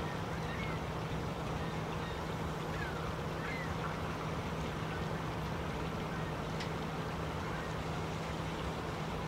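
Steady rushing background noise with a low hum, and a few faint, short, high bird calls in the first half.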